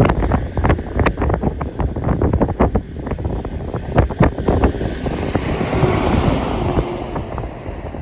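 Strong gusting wind buffeting the phone's microphone: a low, rumbling roar broken by rapid thumps as gusts hit it, with a louder rushing hiss about five to seven seconds in.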